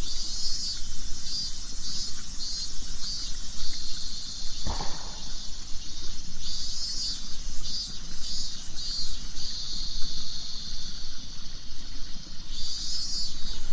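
Min-min cicada (miin-miin-zemi) singing, the 'miin-miin' summer song of Japan: phrases of rhythmic high pulsing, about two pulses a second, alternating with stretches of steady high whirring.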